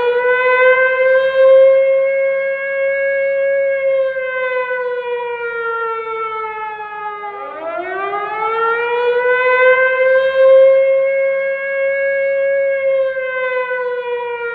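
A siren wailing in slow cycles: the pitch climbs over a couple of seconds, holds high for a few seconds, then sinks slowly, repeating about every eight seconds, twice here.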